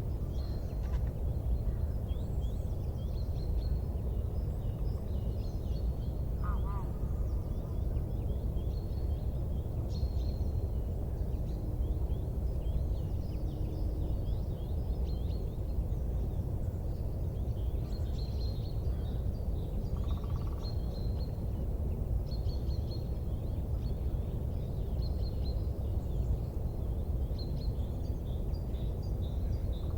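Small birds chirping in short, repeated high calls over a steady low rumble.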